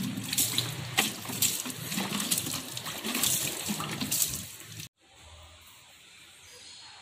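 Water splashing and pouring from a bucket onto a motorcycle exhaust pipe as it is rinsed with fresh water, in irregular splashes. It cuts off suddenly about five seconds in, leaving only a faint hiss.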